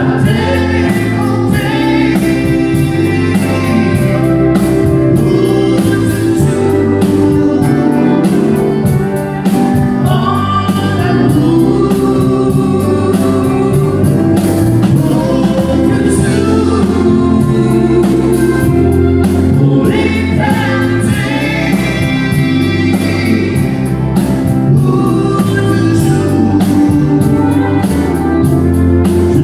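Live country song: a woman sings lead into a microphone, backed by strummed acoustic guitar and a drum kit keeping a steady beat.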